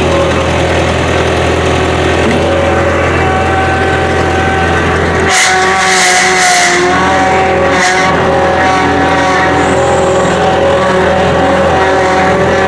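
Old skid steer's engine running loud and steady as the machine is driven, its note shifting about five seconds in, with a few short high hisses soon after.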